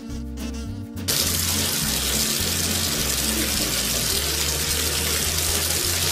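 Bathtub tap running, a steady stream of water pouring into the tub, starting about a second in, over background music.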